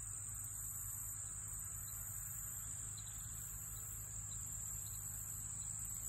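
Insect chorus: a steady high-pitched trill, with a second, higher buzz that pulses on and off every second or so, over a steady low hum.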